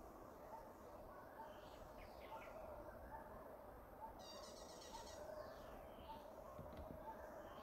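Faint outdoor ambience with birds chirping. A rapid high trill comes about four seconds in, among short gliding chirps and a soft note repeated about twice a second.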